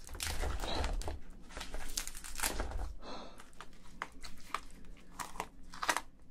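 Shell of a large cooked crayfish cracking and tearing as gloved hands pull it apart: a run of crackles and snaps, with a dull low rumble of handling in the first three seconds.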